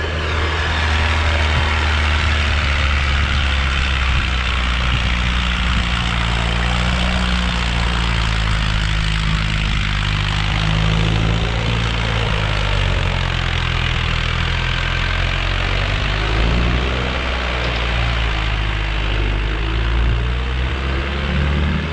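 Mahindra Arjun 555 tractor's four-cylinder diesel engine running steadily under load as it pulls a fully loaded trolley up a dirt slope, with the engine note shifting slightly partway through.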